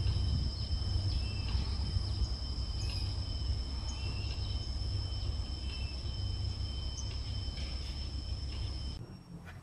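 Outdoor field ambience: insects keep up a steady high-pitched drone on two pitches, with scattered short chirps, over a low rumble. It cuts off about nine seconds in.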